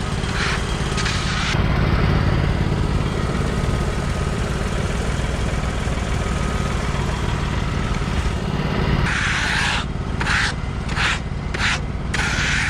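Tractor engine running steadily, with several short hissing bursts in the last few seconds.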